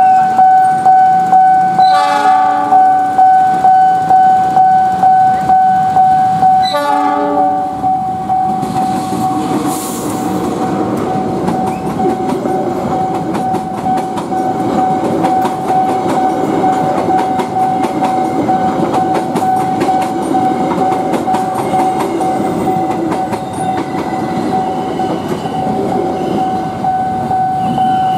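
Level-crossing warning bell ringing steadily, pulsing about twice a second, while a diesel locomotive sounds two short horn blasts, about 2 s and 7 s in. From about 8 s the passenger coaches roll past with a rumble and a clatter of wheels on rail joints, and the crossing bell keeps ringing throughout.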